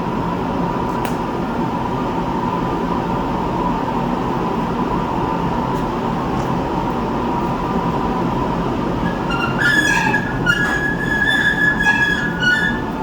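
Steady loud blower noise with a faint constant tone; about nine and a half seconds in, a run of high-pitched metal squeals starts and goes on in short stretches until near the end.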